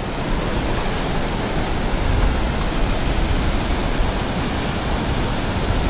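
Steady rush of water pouring through a river dam's gates, an even unbroken noise.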